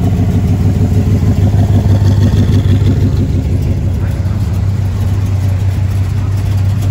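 Classic cars rolling slowly past at walking pace, their engines running with a steady, deep exhaust rumble that pulses a little stronger a second or two in.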